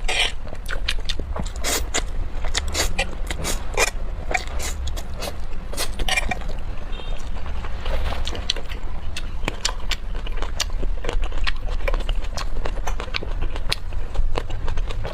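Close-miked eating: biting and chewing, with many irregular crisp clicks and crackles over a low steady hum.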